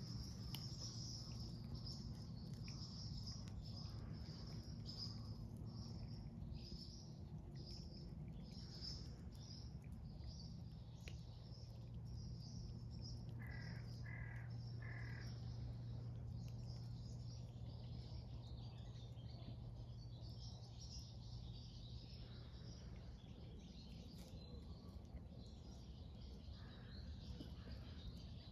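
Birds chirping in high, rapid notes throughout, with three short, lower calls in quick succession about halfway through. A low steady hum sits underneath and fades out a few seconds before the end.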